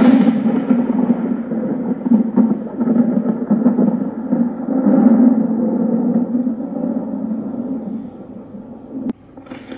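Cinematic rumbling boom sound effect, a deep thunder-like swell that surges again about five seconds in. It fades and cuts off abruptly near the end, just as a fresh boom begins.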